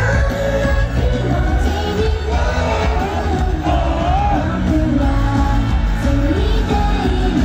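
Live J-pop idol group performance over a concert PA: girls singing together over a pop backing track with heavy bass, heard from the audience.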